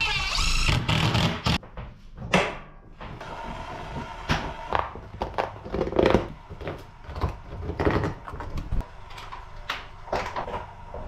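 Cordless driver whining as it drives a screw into plywood for about the first second and a half, then stopping. Scattered knocks and clicks follow.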